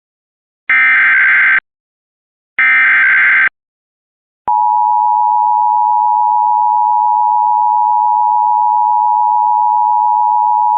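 Emergency Alert System tones: the last two of the three SAME header data bursts, each a harsh digital screech just under a second long, about a second apart. Then, about four and a half seconds in, the EAS two-tone attention signal starts, a loud, steady dual tone.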